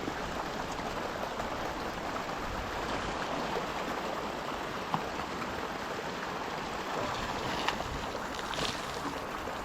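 Irrigation ditch water running steadily through siphon tubes into the furrows, an even rushing like a small waterfall, with a couple of faint knocks.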